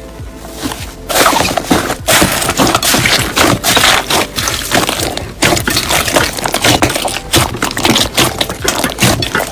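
Slime squelching and crackling: a dense, irregular run of wet clicks and pops.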